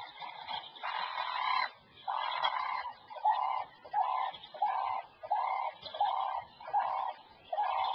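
An animal calling: one harsher call about a second in, then a steady run of short, alike calls, about one and a half a second.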